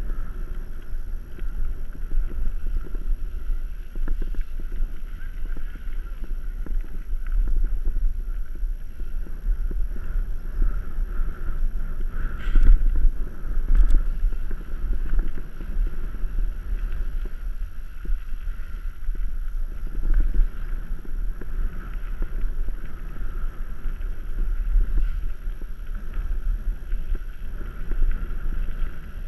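A mountain bike rolling fast down a dirt singletrack, heard from a camera on the bike or rider: a steady rumble and rattle of tyres and frame with wind buffeting the microphone. A couple of sharp knocks come a little before halfway through.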